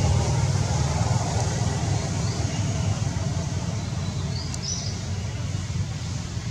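Steady low outdoor rumble with a few faint, short bird chirps, the clearest about four and a half seconds in.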